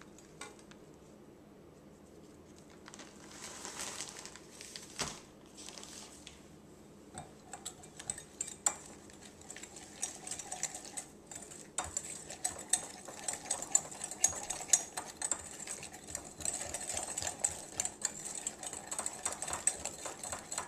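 A whisk beating a sauce in a glass measuring bowl: a fast, rattling run of clinks and ticks against the glass, starting about seven seconds in and going on to the end. Before it, a rustle of dry seasonings being shaken from a plastic bag into the bowl.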